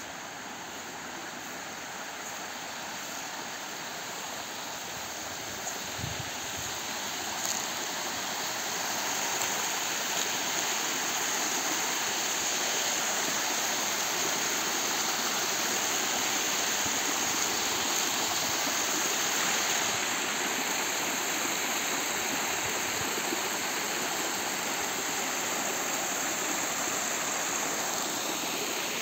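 Shallow stream splashing over small rock cascades into a pool, a steady rush of water that grows louder over the first ten seconds and then holds steady.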